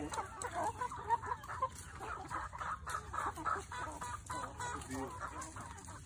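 Chickens clucking, many short calls overlapping from several birds in the flock.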